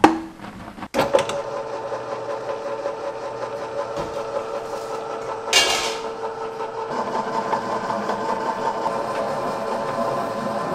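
Commercial stand mixer's motor running steadily with its dough hook turning in the steel bowl, mixing flour into dough. A brief hiss comes about five and a half seconds in.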